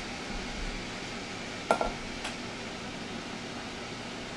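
Kitchenware clinking twice, about two seconds in: one sharp ringing clink, then a lighter tap half a second later, over a steady room hum.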